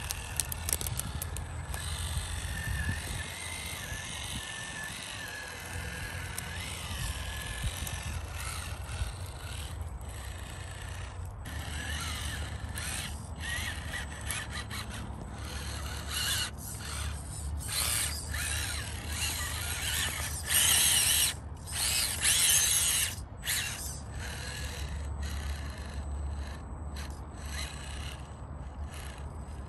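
Electric drivetrain of a 1/10-scale RC rock crawler whining as it crawls over logs and roots, the pitch wavering with the throttle. Its tyres and chassis knock and scrape on the wood, with a loud cluster of scrapes about two-thirds of the way through.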